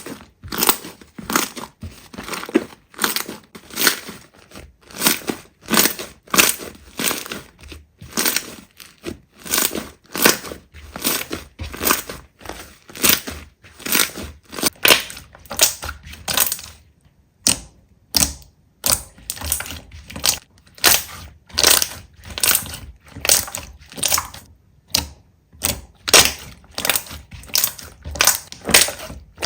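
Slime being worked by hand: squeezed and pressed over and over, each press giving a short crackling squish, about two a second, with a brief pause about seventeen seconds in.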